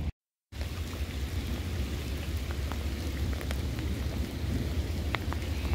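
Steady outdoor noise: wind rumbling on the microphone over a soft hiss, with a few faint ticks. It starts after a brief dropout to silence.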